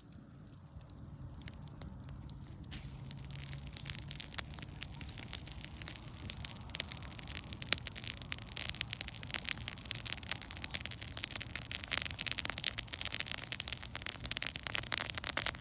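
Bonfire crackling and popping, the crackles growing denser and louder over the first few seconds.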